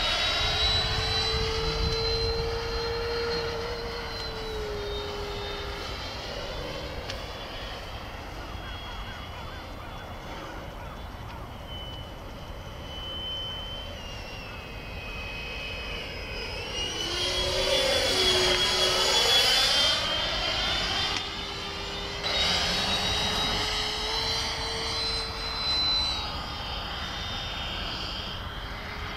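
Freewing F-22 Raptor RC jet's twin 90 mm electric ducted fans whining in flight, the pitch rising and falling with the throttle. The jet is loudest as it passes close about 18 seconds in, with a sweeping whoosh.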